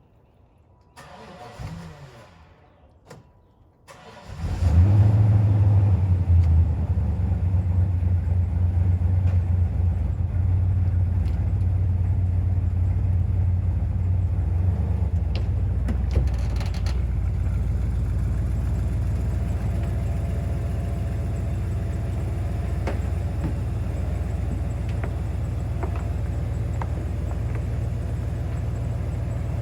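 A 1995 Impala SS's Blueprint LT1 355 V8 with an LT4 hot cam cranks on the starter for about three seconds, catches, and settles into a steady idle. It is running through an exhaust with most of its leaks repaired.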